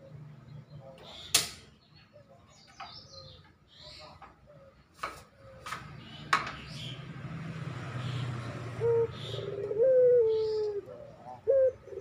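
Barbary dove (burung puter) cooing: after a few sharp clicks, repeated coos start about nine seconds in, the longest near ten seconds, slightly falling. It is the call of a male in breeding condition calling for a female.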